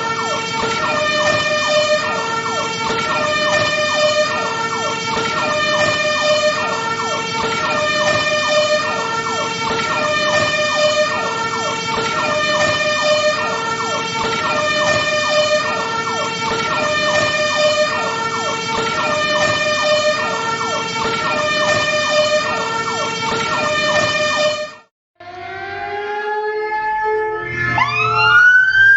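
Fire truck siren sounding a two-tone hi-lo pattern, switching between a high and a low note about once a second. About 25 seconds in it cuts off abruptly and a different siren starts up, its wail rising in pitch over a low engine rumble near the end.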